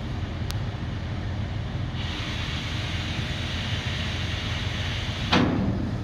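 Tractor engine running steadily while hydraulic cylinders fold the steel side frame of a bale trailer. A steady hiss sets in about two seconds in, and near the end the frame comes to rest with a loud metallic clank.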